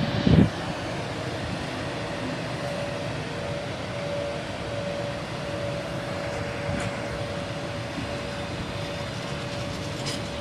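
FS E.652 electric locomotive hauling a freight train of flat wagons slowly away, a steady rumble with a steady hum. A single loud thump sounds just after the start.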